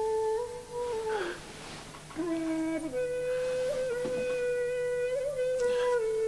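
A flute playing slow, long held notes that step up and down in pitch with small bends, and breathy puffs between the phrases.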